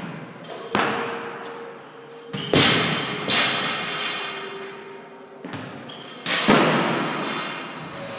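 Thuds of people doing burpees, dropping onto and landing on a rubber gym floor. There are four loud thuds, each echoing on in the hall.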